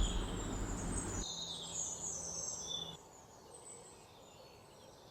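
Faint birds chirping, with short high chirps. A steady hiss underneath cuts off suddenly about a second in.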